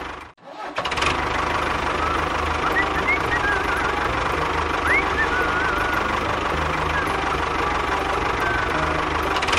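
A tractor engine runs steadily with a low, knocking chug, after a brief dropout near the start. Short, high, chirping whistles sound over it now and then.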